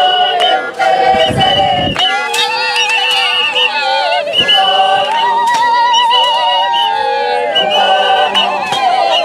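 Group of women and girls singing a Zulu wedding song a cappella, many voices together, with high, wavering calls over the singing.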